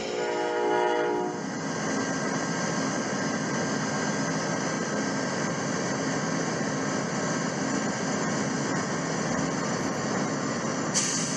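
A train horn sounds a chord for about a second and a half, then a steady train rumble carries on.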